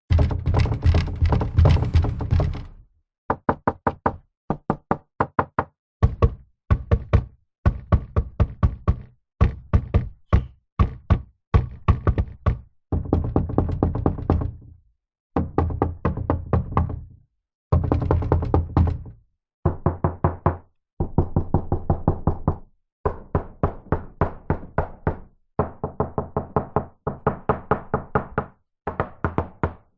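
Knocking on a door in many separate bouts. Each bout is a quick run of several knocks, some bouts rapid and pounding, others slower and spaced out, with short silences between them.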